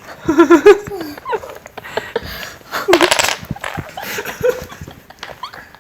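A person laughing in quick, wavering bursts in the first second, followed by scattered short sounds and a brief hissy burst about three seconds in.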